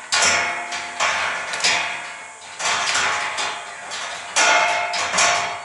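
Plastic-coated curtain wire being pulled through the hands and slapping against the bus interior: about seven sharp knocks at uneven intervals, each ringing briefly.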